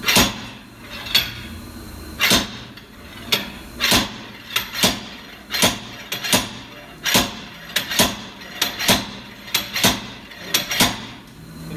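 Slide hammer pulling on the seized rear wheel hub of a 2010 BMW 528i xDrive: the weight is slammed back against its stop again and again, giving sharp metal clanks one or two times a second. The hub does not come free, because it is rusted onto the axle.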